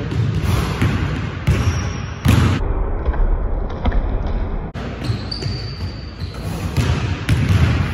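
Basketball dribbled on a hardwood gym floor: repeated bounces as a player drives to the hoop.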